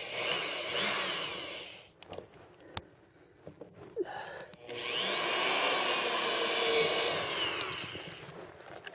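Corded electric drill boring screw holes through a pickup's front air dam, in two runs of a few seconds each. The first run ends about two seconds in and the second starts about five seconds in, with a few clicks and small knocks between them.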